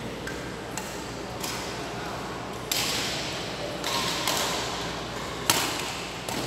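Badminton rackets striking shuttlecocks: several sharp hits scattered through, the loudest about five and a half seconds in, over a low hiss of the hall.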